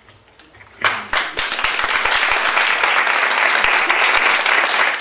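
A roomful of people applauding: a brief hush, then clapping breaks out about a second in and keeps up steadily.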